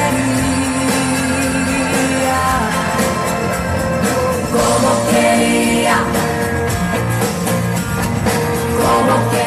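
Live pop-rock band playing a song with female vocals, electric guitar, accordion and drums.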